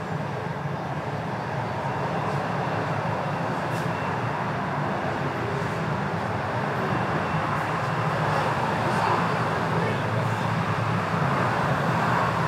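Steady road traffic noise from cars passing on a busy street.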